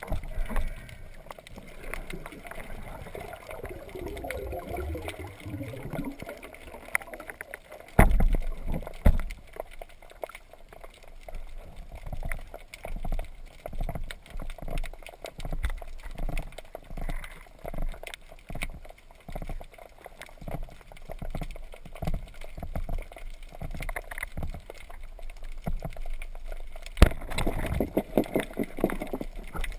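Underwater sound picked up by a diver's camera: water swishing, with a regular series of soft knocks about once a second, a sharp knock about eight seconds in and a louder sharp crack near the end followed by a quick run of clicks.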